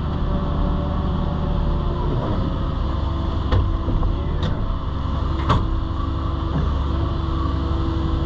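Excavator's diesel engine running steadily, with a held whining tone that comes and goes from about three seconds in. Three sharp knocks about a second apart near the middle.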